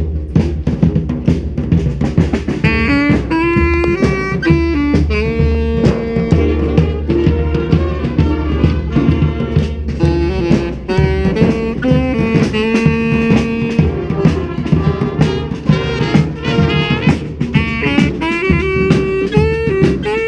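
Brass street band playing: horns and saxophones hold long notes and run short stepping melodies over a drum beat.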